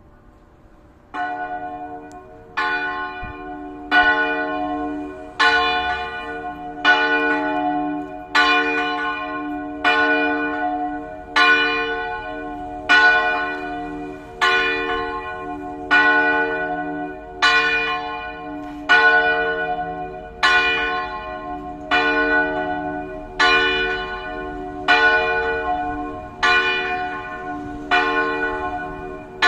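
Church tower bell ringing for mass. The first stroke comes about a second in, then one stroke about every one and a half seconds, each on the same note and ringing on until the next.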